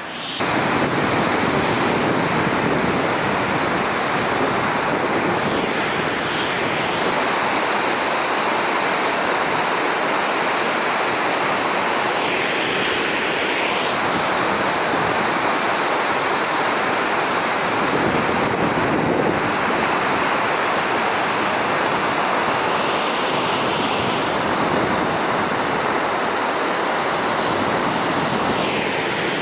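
Waterfall roaring: a loud, steady rush of falling water that cuts in abruptly just after the start and never lets up.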